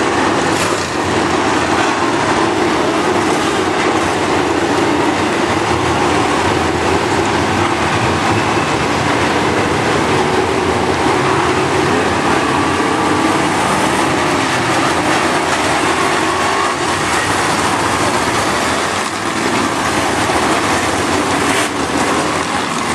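A field of dirt late model race cars' V8 engines running together as a loud, steady drone, with cars passing close by near the end.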